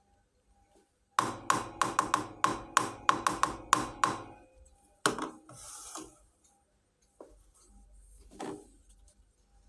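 Small pieces of a miniature toy kitchen set being handled. About a second in comes a quick run of about a dozen sharp clicks, each ringing briefly, over some three seconds. A few separate knocks and some rustling follow.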